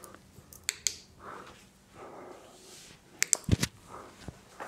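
Quiet handling noises: soft rustles and breaths, a couple of sharp clicks just under a second in, then a quick cluster of clicks with a dull knock about three and a half seconds in.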